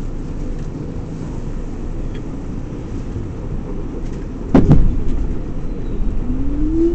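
Interior running noise of an R46 subway car: a steady low rumble of wheels on track, a loud clank about four and a half seconds in, and near the end a whine rising in pitch from the traction motors as the train picks up speed.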